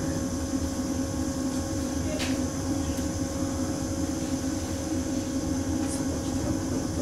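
Steady hum of a standing electric train's running equipment, holding a few constant tones over a low rumble, with a couple of faint clicks about two and three seconds in.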